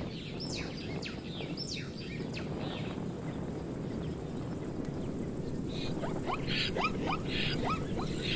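Steady outdoor background noise with a few high, falling chirps in the first seconds. From about six seconds in, a run of short, sharp animal calls starts, about three a second and growing louder.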